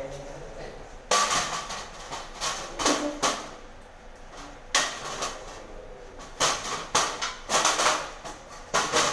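Metal-framed glass door panel knocking and clattering against the door frame and tiles as it is manoeuvred into the doorway: a series of sharp, irregular knocks that start about a second in.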